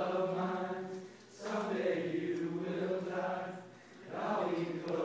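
A group of young men singing together in long held notes, in three phrases with short breaks between, to an acoustic guitar.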